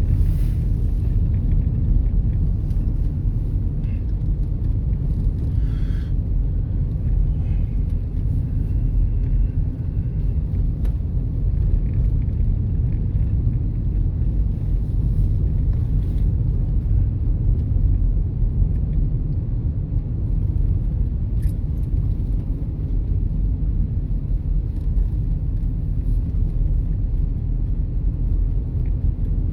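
Car driving along a road: a steady, low rumble of engine and tyre noise.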